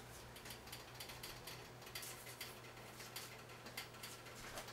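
Faint, rapid, irregular ticking and crackling from a hot, lidded cast iron Dutch oven on the stove with pita bread baking inside, over a low steady hum.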